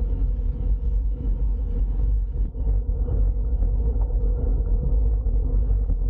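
Wind buffeting the microphone of a camera riding on a moving bicycle: a loud, steady low rumble with no let-up.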